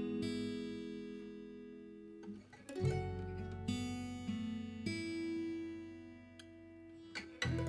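Background music on acoustic guitar: chords strummed and left to ring and fade, with a new chord about three seconds in and another near the end.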